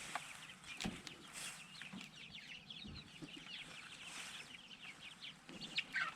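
Chickens clucking, a steady stream of many short, quick calls.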